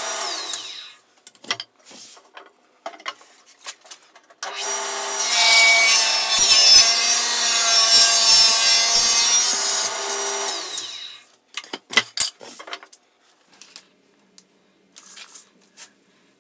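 Table saw cutting a wooden board fed along the fence. The first cut winds down about a second in, followed by a few small knocks. The saw starts again about four and a half seconds in, cuts for about six seconds and winds down, and a few sharp knocks follow.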